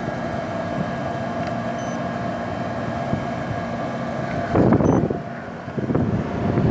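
1981 Emerson Quiet Kool 18,000 BTU window air conditioner running with its compressor and fan on: a steady hum with a held tone. Louder rushes of its blown air hit the microphone about four and a half seconds in and again near the end.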